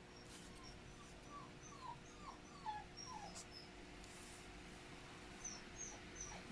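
Faint animal cries: a run of about five short falling squeals in the first half, with scattered high chirps and a low steady hum underneath.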